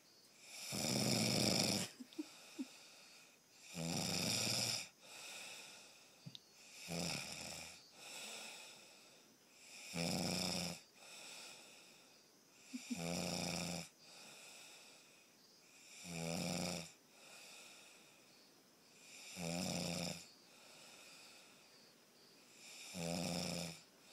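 A sleeper snoring in a steady rhythm: a rasping snore on each breath about every three seconds, with a softer breath out between them.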